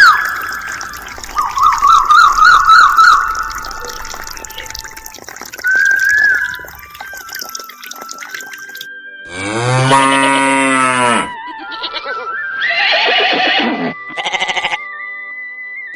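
A warbling, whistle-like tone over trickling water from a toy pump's tube, then about nine seconds in a cow's moo lasting about two seconds, followed by shorter animal calls. All of it sounds like dubbed-in sound effects.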